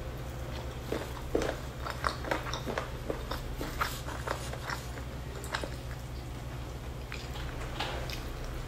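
Close-up eating sounds: a person biting chicken off the bone and chewing, a quick run of small wet clicks and smacks that grows sparser after about six seconds. A steady low hum runs underneath.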